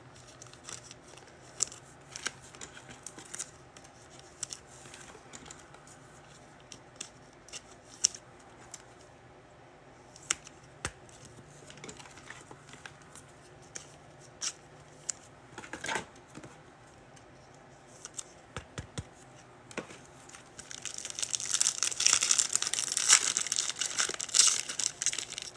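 Scattered light clicks and taps of card handling, then, from about four seconds before the end, the foil wrapper of a trading-card pack being torn and crinkled open in a long, effortful tear.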